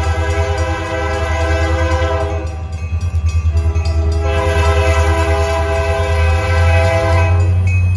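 Diesel freight locomotive's air horn sounding long blasts: it stops about two and a half seconds in, sounds again from about four seconds in, and breaks off just before the end. A steady low rumble from the approaching locomotives' diesel engines runs beneath.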